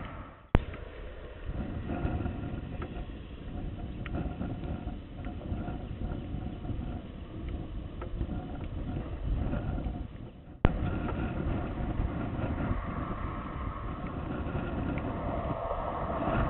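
Wind rumbling on a small camera microphone outdoors. The noise cuts out briefly twice and comes back each time with a sharp click, about half a second in and again about ten seconds in.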